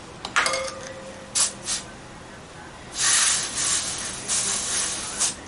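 A click with a brief metallic ring and a couple of light ticks, then about three seconds in a loud hiss of air from a motorcycle tyre valve lasting about two seconds, as the tyre pressure is checked and let down.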